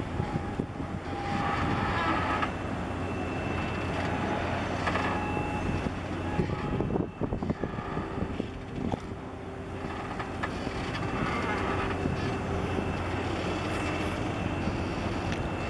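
Steady low rumble with faint steady tones from a large container ship's engines and machinery as it passes close by.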